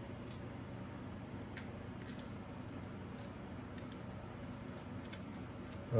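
Faint, scattered light clicks from handling an acrylic GPU water block and backplate assembly, over a steady low room hum.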